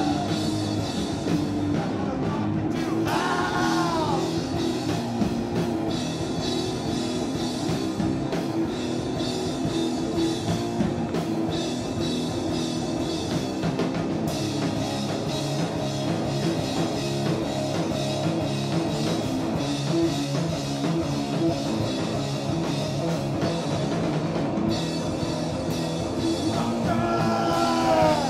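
A live heavy rock band plays loudly, with distorted electric guitar over a pounding drum kit. A high note bends up and back down about three seconds in, and again near the end.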